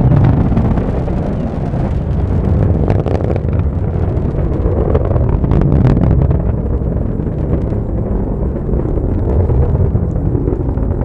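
Atlas V rocket in ascent: the roar of its RD-180 first-stage engine and two solid rocket boosters, a loud, steady deep rumble with a few sharp crackles about three and six seconds in.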